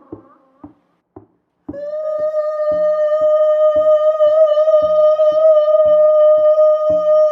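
Hand drum beaten in a steady pattern of about three strokes a second, breaking off briefly a second in. Nearly two seconds in, a long, steady, high tone with overtones comes in and holds over the drumming.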